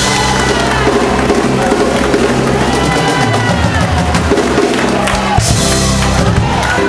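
Church band playing loud, steady music with a drum kit and sustained bass chords, with voices calling out over it.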